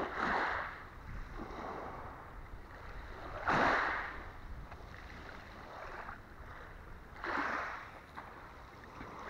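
Small waves washing up onto a pebble beach, three times at about three-and-a-half-second intervals, each wash rising and fading over about a second.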